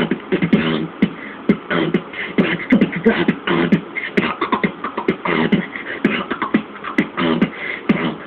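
Solo beatboxing with a hand cupped at the mouth: a fast, steady rhythm of sharp mouth clicks and percussive knocks mixed with short hummed tones.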